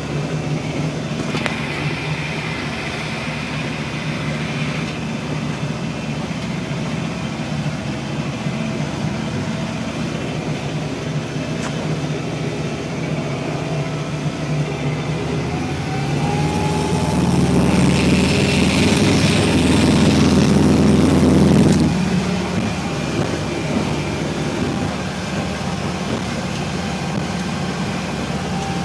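Boat engine running steadily with a low drone; it swells louder for about five seconds past the middle, with a brief rising tone, before settling back.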